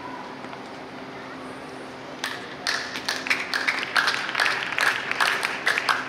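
Spectators clapping as a show-jumping round ends: scattered hand claps begin about two seconds in and build into steady applause from a small crowd.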